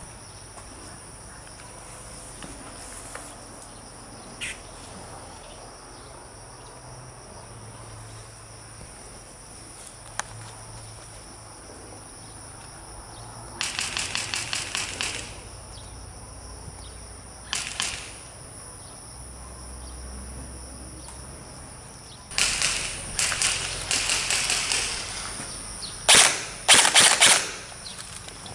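Airsoft guns firing in bursts of rapid sharp shots. One burst comes about halfway in and a short one a few seconds later. Near the end a heavier exchange follows with several bursts, the loudest among the last.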